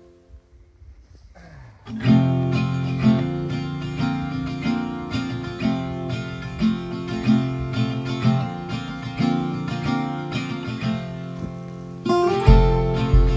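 Background music: acoustic guitar strumming and picking, starting after about two seconds of quiet, with a heavier beat and deep bass coming in near the end.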